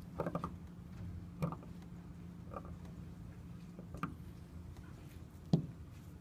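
A few faint clicks and scrapes from a seal-carving knife and stone seal being handled. There is a small cluster at the start, scattered single clicks after it, and the sharpest click near the end, over a steady low hum.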